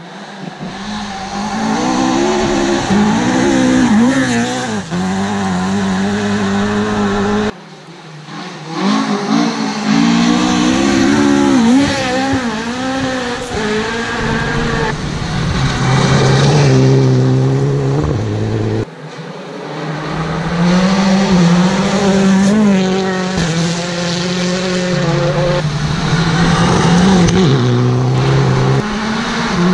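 Rally cars revving hard through the gears as they come up a gravel stage, the engine pitch climbing and dropping again and again with each shift. The sound breaks off abruptly twice and starts again with another car.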